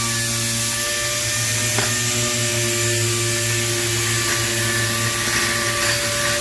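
Steady hum and hiss of running shop machinery, with a faint click about two seconds in.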